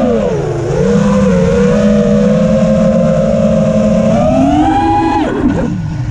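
5-inch FPV quadcopter's brushless motors (iFlight Xing 2306.5, 2550KV, on 4S) whining, the pitch rising and falling with the throttle: a short dip, a steady stretch, a rise about four seconds in, then a steep drop near the end.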